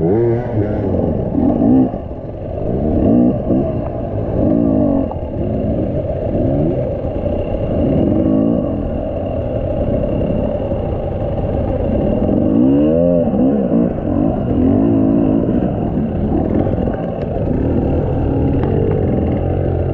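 Enduro dirt-bike engines revved in short repeated bursts, the pitch rising and falling again and again as the bikes are worked up a steep, muddy forest climb.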